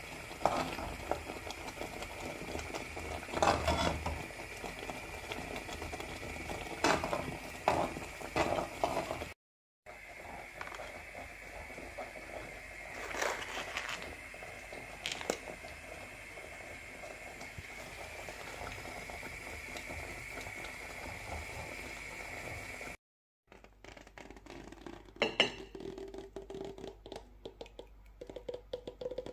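Metal spoon scraping and clinking against a pan of thick risotto, with scattered sharp knocks over a steady high hum. Near the end come softer scrapes and clicks as the risotto is slid from the pan onto a plate.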